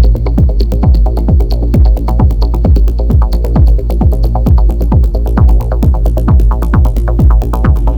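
Electronic dance music from a DJ set: a steady four-on-the-floor kick drum about twice a second over heavy bass, with crisp hi-hats on top.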